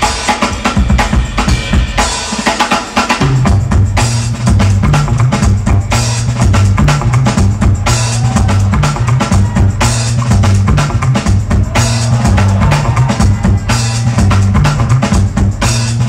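Loud DJ music for a breaking battle, driven by a heavy drum-kit beat with kick and snare; a low bass line comes in about three seconds in.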